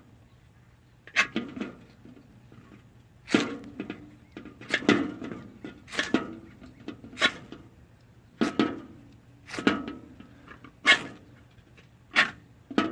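Small Firefly ferrocerium rod scraped against a Swiss Army Knife to throw sparks: about nine short, sharp scrapes, roughly one a second.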